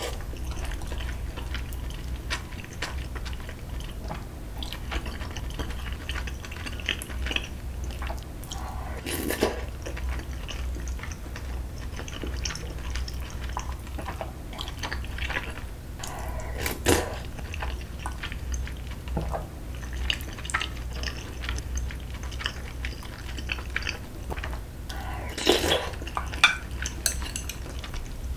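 Metal spoon clinking and scraping against an aluminium ramyeon pot as broth-soaked rice is scooped up, with chewing between the scoops. A few sharper clinks stand out around the middle and near the end, over a steady low hum.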